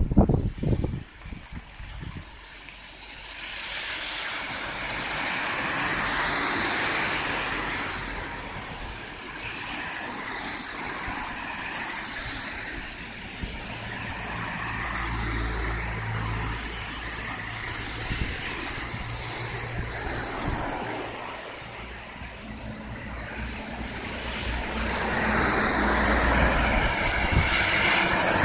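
Typhoon rain and wind, the noise swelling and easing every couple of seconds, with a low rumble partway through.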